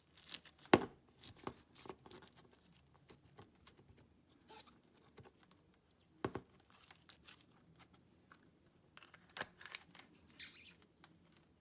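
Clear slime filled with clay fruit sprinkles being squeezed and pushed into a clear plastic jar, giving scattered soft crackles, squelches and clicks of slime and plastic. Near the end the jar's plastic lid is fitted on.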